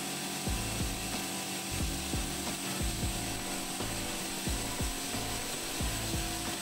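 AMADA CMB circular cold saw with a carbide-tipped blade running steadily through a large-diameter 1045 steel bar mid-cut. It is a continuous, even machining noise with faint low pulses recurring throughout.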